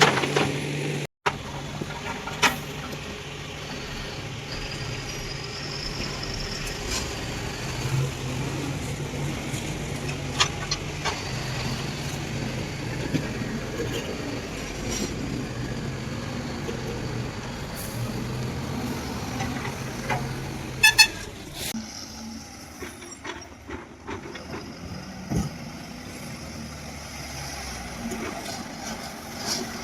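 Heavy diesel machinery running at a work site: a steady low engine drone with scattered metallic knocks and clanks. About two-thirds through there is a short flurry of sharp knocks, and after it the engine drone is fainter.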